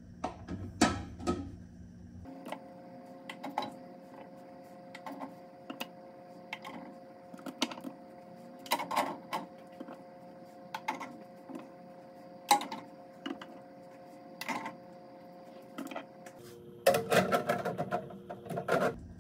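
Glass canning jars clinking and knocking against the jar lifter, each other and the stainless pressure canner as they are lowered in one by one: a string of irregular clinks, with a busier cluster near the end.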